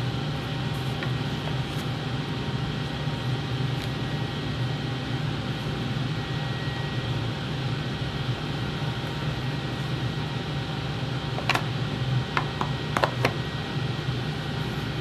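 A steady mechanical hum and hiss, like a fan or motor running, with a few light clicks and taps a little past the middle as the knife is slid back into its scabbard.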